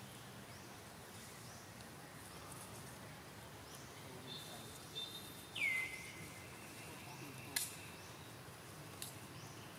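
A high whistled animal call that drops sharply in pitch and then holds steady for about two seconds, over faint repeated chirping outdoors. A single sharp click follows the call.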